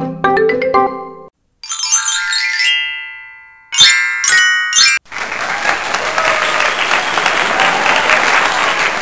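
A light marimba music loop stops about a second in. A sparkling chime glissando and a few bright chime hits follow, the reveal jingle for the right answer, and then about four seconds of recorded applause.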